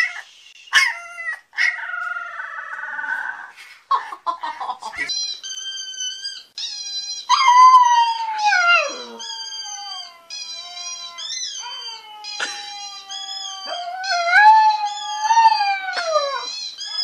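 A husky puppy howling: long drawn-out howls that waver and then fall in pitch, one after another from about five seconds in. Before that, short high squeaky cries from a very young puppy.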